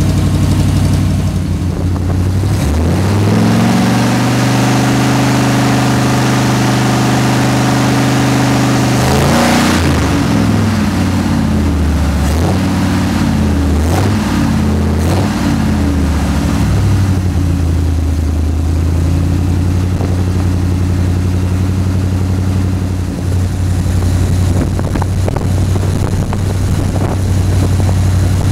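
Chevrolet 350 small-block V8 running in a 1979 Blazer. The engine speed rises about three seconds in and holds for several seconds, then swings up and down several times before dropping back toward idle.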